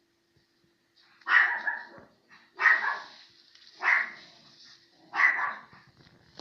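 A dog barking four times, evenly spaced about a second and a half apart.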